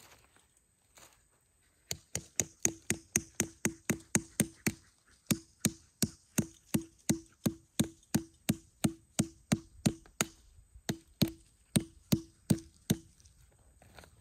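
Rapid, evenly paced hammer blows, about four a second, each with a short ringing note, in three runs with brief pauses.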